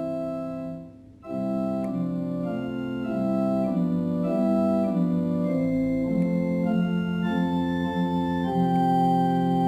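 Organ playing a hymn tune in slow, sustained chords. A held chord ends just under a second in, and after a brief pause the chords start again.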